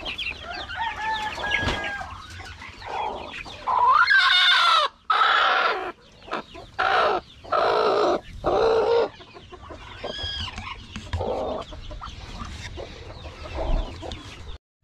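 Native chickens calling: thin chick peeps at first, then a rooster crowing about four seconds in, followed by a run of loud squawks and quieter clucking.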